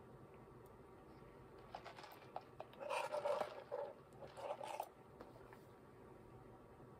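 Drink sipped through a plastic straw from an iced cold cup. A few light clicks come first, then two short slurping sips, about three and four and a half seconds in.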